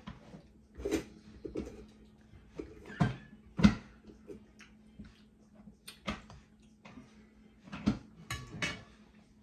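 Eating at a table: a metal spoon clinking and scraping against a ceramic bowl, with chewing and other mouth sounds. A few sharp clinks stand out about three to four seconds in, over a faint steady hum.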